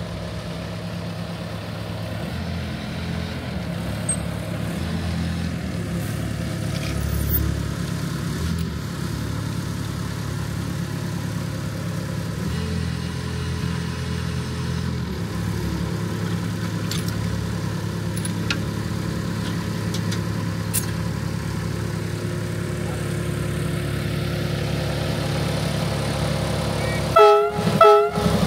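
Ride-on miniature railway locomotive's engine running steadily, then its horn giving two short toots about a second apart near the end.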